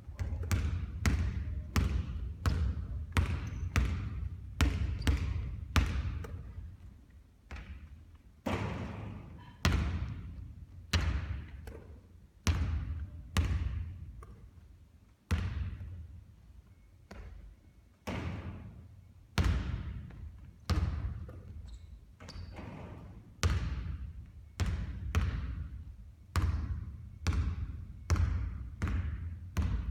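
A basketball bouncing repeatedly on a court during three-point shooting practice: a steady series of sharp thuds at irregular spacing, roughly one or two a second.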